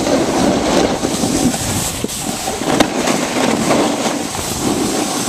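Snowboard sliding and scraping over packed snow, a steady rough rushing noise, with a sharp click about two seconds in and another soon after.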